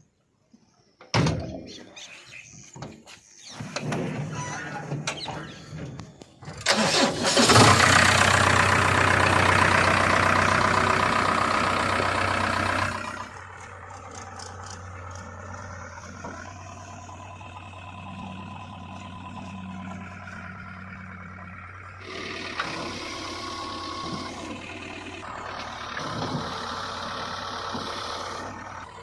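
Heavy diesel engine of farm and earthmoving machinery running. It gets much louder for several seconds from about seven seconds in, then settles to a steadier, quieter run, and picks up again near the end.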